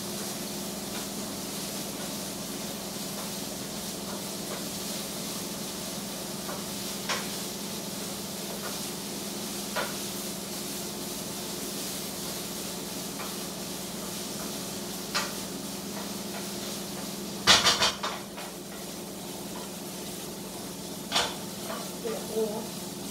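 Beef and vegetable stir-fry sizzling in a frying pan as a utensil stirs it, with occasional sharp clinks against the pan and a louder clatter about three-quarters of the way through. A steady hum runs underneath.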